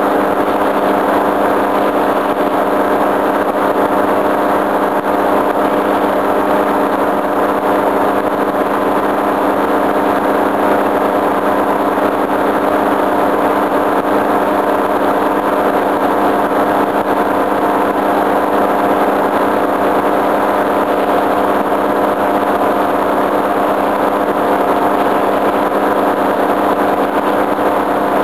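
Tandem paramotor trike's engine and propeller running steadily in cruising flight, holding one even pitch without revving up or down.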